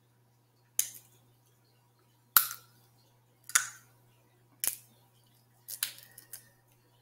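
Snow crab shells being cracked and snapped by hand close to the microphone: five or six sharp cracks about a second apart, the last few coming close together.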